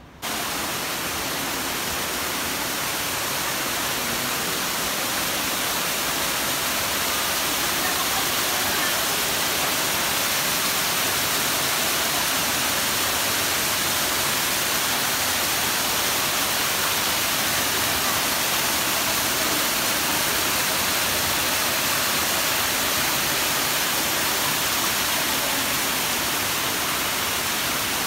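Water from a man-made rock waterfall pouring down in a steady rush of white water.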